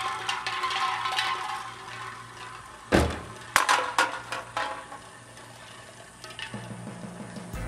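Hip-hop music fading out, then an SUV door slamming shut about three seconds in, followed by a few lighter knocks.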